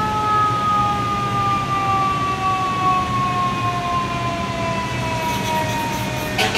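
Propulsion whine of a New York subway R142-family train, two tones gliding steadily down in pitch as the train slows, over the rumble of its wheels on the elevated track. Sharp clattering starts right at the end.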